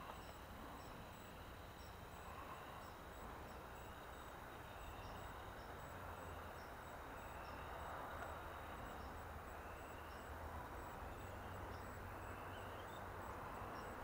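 Faint outdoor evening ambience: a short rising chirp repeats about once a second over a low steady hum.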